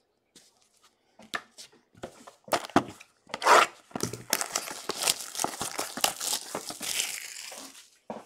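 Plastic shrink-wrap on a trading card box crinkling and rustling as the box is handled. A few light knocks and crackles start about a second in, and denser crinkling fills the second half.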